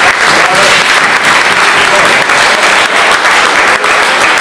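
An audience applauding with dense, steady clapping.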